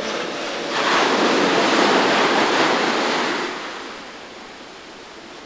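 An ocean wave breaking on the beach: the surf swells up less than a second in, holds for about three seconds, then washes away and fades.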